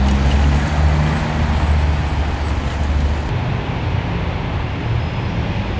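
Street traffic noise: a motor vehicle's engine running close by over a steady hum of road traffic, the engine sound easing off about three seconds in.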